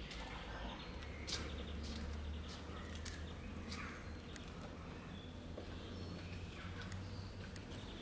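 Faint small animal chirps over a steady low hum, with scattered light clicks.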